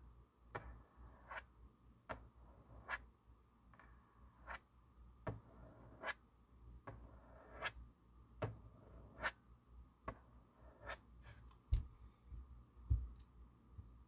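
Quiet, regular ticking: a short click about every 0.8 seconds over a faint steady hum, with two soft low thumps near the end.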